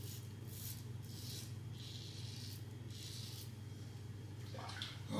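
Mühle R89 safety razor scraping through lathered stubble, about four short, faint strokes in the first three and a half seconds.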